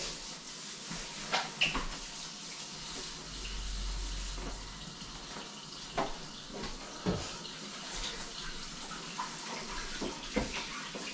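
Water running steadily from a kitchen tap into the sink, with a few short light knocks.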